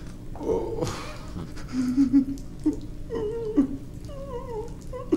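A man moaning and whimpering in pain: a run of short cries whose pitch wavers and slides, the longest near the end.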